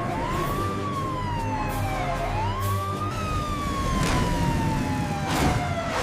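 Cartoon emergency-vehicle siren wailing, rising and falling twice and then sliding down in one long fall, with two brief whooshes near the end.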